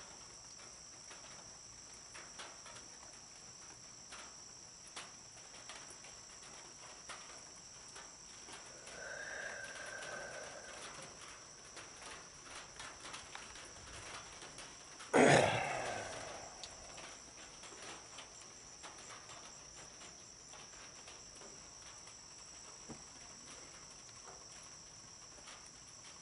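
Steady high-pitched chorus of night insects, with one loud sudden knock about halfway through that dies away over about a second.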